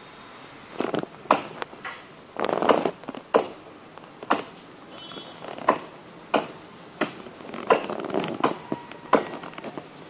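Irregular sharp clicks and cracks, roughly one a second, with short bursts of crunchy rustling between them.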